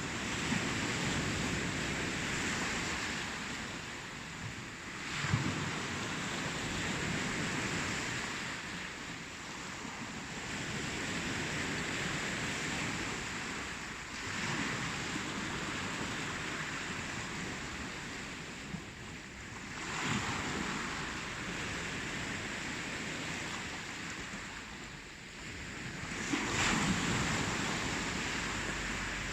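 Ocean waves breaking and washing on the shore, a continuous surf rush that swells and ebbs every five or six seconds, with a stronger wave breaking near the end.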